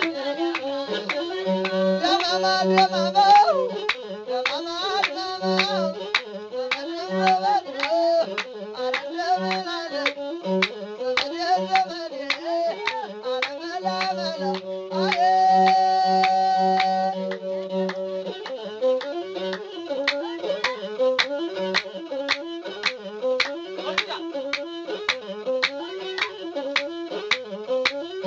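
Traditional Ethiopian azmari music: a masinko (one-string bowed fiddle) plays a repeating melody over a steady beat of sharp strokes. There is one long held high note about halfway through.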